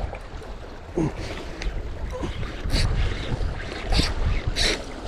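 Wind buffeting the microphone over the sea washing against rocks, with a few brief hissing rushes, the longest about four and a half seconds in.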